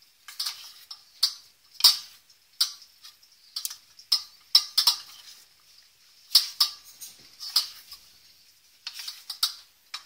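Metal spoon clinking and scraping against the side of a stainless steel bowl while stirring thick, half-melted chocolate, in irregular sharp taps about one or two a second.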